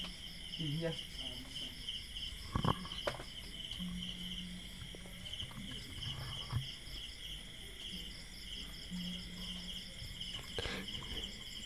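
Crickets chirping in a steady, fast pulsing trill, with a few short knocks and a low hum that comes and goes.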